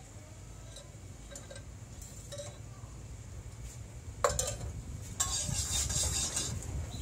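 Metal cooking utensils clinking against pots and dishes during street-stall cooking, over a low steady rumble. A sharp metallic clink comes about four seconds in, and a stretch of hissing noise follows a second later.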